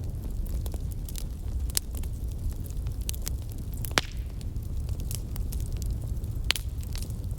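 Wood fire burning and crackling: a steady low rumble of flames with frequent small snaps and pops, a sharper pop about four seconds in and another near the end.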